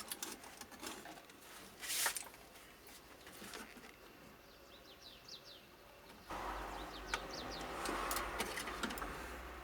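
Faint handling clicks at a workbench, a few short high falling chirps like a bird's, then about six seconds in a steady low hum and rushing noise starts abruptly and carries on.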